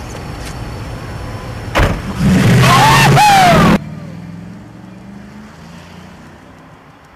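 A car engine idles, a car door shuts about two seconds in, then the engine revs loudly with high squealing for about a second and a half before cutting off suddenly. After that the car is heard driving away, its engine fading.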